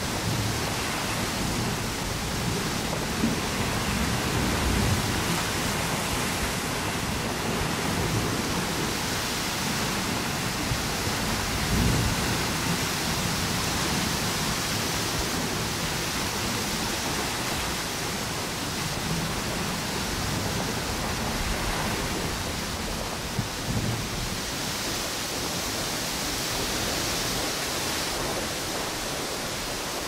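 Strong wind and ocean surf on a tropical beach: a continuous rushing hiss of wind through palm trees and breaking waves that slowly swells and fades, with low rumbles of gusting wind a few times, the strongest about twelve seconds in.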